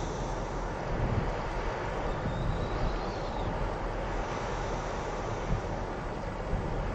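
Small passenger ferry's engines running steadily as it moves across the water, a constant low rumble, with wind buffeting the microphone now and then.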